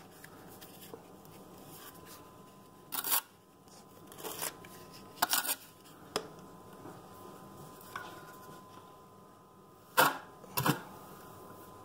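A steel notched trowel scraping thinset mortar: about six short scrapes and knocks as the mortar is scooped up and spread onto the wall, the loudest two near the end.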